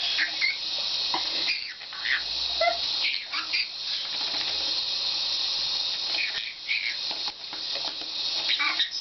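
Tap water running steadily into a sink while a conure bathing in it lets out short, squeaky chirps several times.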